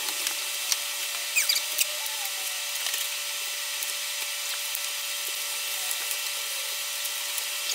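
A few short rustles and light clicks from bike parts and packing wrap being handled, over a steady hiss with a faint steady hum.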